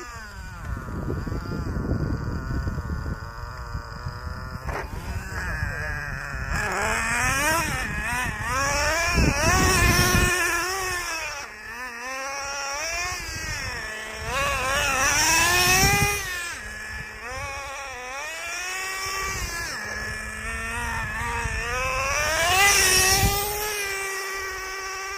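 Traxxas Nitro Slayer RC truck's small nitro engine revving up and down over and over, a buzzing whine whose pitch climbs and falls, loudest in three long rev-ups.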